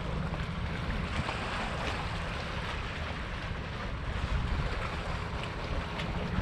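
Wind buffeting the microphone, a steady rushing rumble with no break, over open-water ambience.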